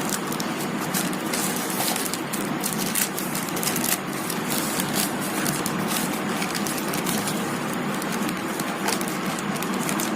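Packaging of a small microphone box being opened and handled: irregular crackling and rustling of cardboard and plastic over a steady hiss.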